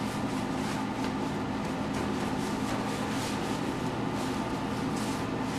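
Gloved hands patting and pressing paper towels onto a raw chicken to dry its skin, soft paper rustles over a steady background hum.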